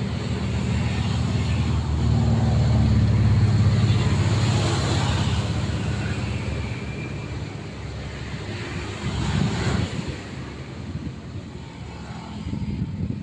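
Mini excavator's diesel engine running under hydraulic load as the machine digs and slews, rising in level about two seconds in and easing off after about five seconds. A short clatter comes about nine seconds in.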